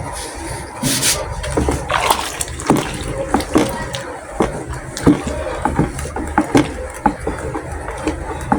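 Hot water and melted conditioner mixture being stirred by hand in a large plastic bucket: liquid sloshing, with irregular knocks and scrapes of the stirrer against the bucket.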